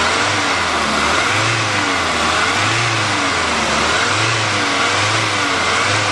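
Volvo turbo engine being revved up and down in a run of quick blips, roughly one a second, its pitch rising and falling each time. The engine had overheated after a split radiator hose, and it sounds pretty good, not perfect.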